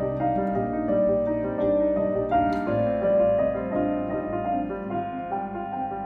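Background music: piano playing slow, sustained chords, with the notes changing about once a second.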